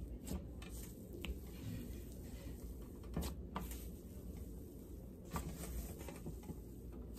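Slime being pressed and kneaded by hand on a tabletop, giving a crackling sizzle with a handful of sharper snaps scattered irregularly through it.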